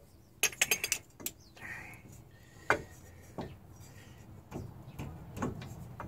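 Steel parts of a homemade ball joint press clinking as its fixtures are positioned around the ball joint: a quick rattle of about six metal clinks half a second in, then single knocks about once a second.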